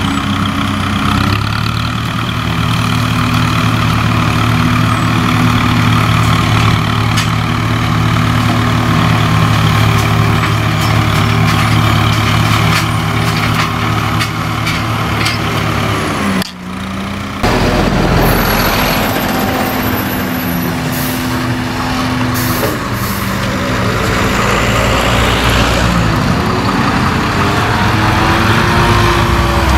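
Tractor diesel engine running steadily under load, driving a mounted mower through long grass. Just past the halfway point the sound changes to road traffic: vehicles pass close by, their engine pitch falling as they go, with the tractor working further off.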